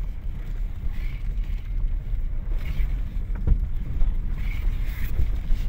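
Daewoo Nexia idling with a low rumble, with a few dull knocks from the driver's side front, the clearest about three and a half seconds in. The knock has persisted after a new upper ball joint, tie-rod end, outer CV joint, springs and struts; the owner likens it to a stone thrown up by the wheel.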